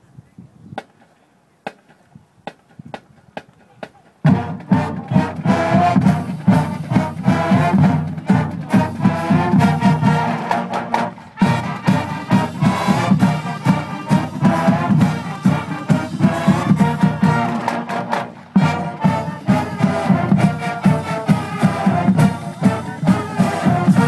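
High school marching band of brass and woodwinds playing together, starting about four seconds in after a few faint clicks, then playing on loudly with a steady beat.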